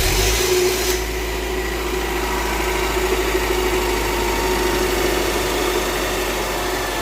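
Honda Prelude four-cylinder engine just restarted, running a little higher for about the first second and then settling into a steady idle. It runs on brand-new alternator and power steering belts, with no belt squeal.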